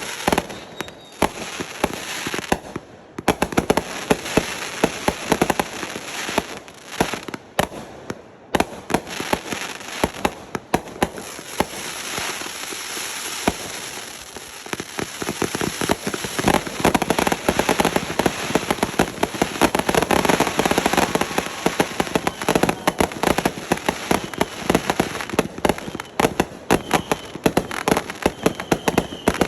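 Fireworks going off in rapid succession: a dense crackle of many small pops and bangs, with short lulls early on, growing louder and denser a little past halfway.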